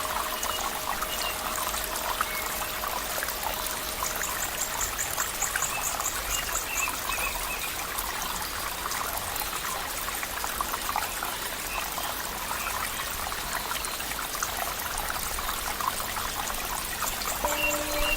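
Water trickling and splashing in a steady flow, like a small stream running over stones, with a few faint high chirps and a brief rapid trill. Near the end, soft steady musical tones come in over the water.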